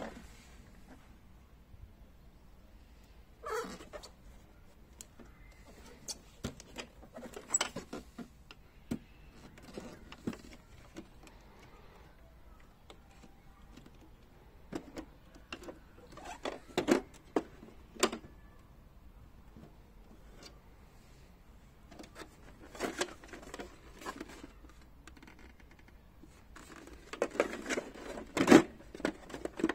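Hard plastic clicks, knocks and rattles of a Festool Systainer³ organizer case being handled, its latch and clear lid worked open. They come in scattered bursts, the loudest cluster near the end.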